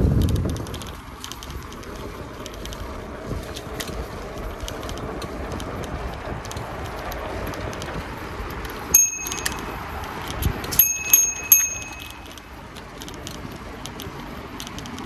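Bicycle bell rung once about nine seconds in, then three quick rings about two seconds later, over the steady noise of riding along a road. A loud low rumble fades away in the first second.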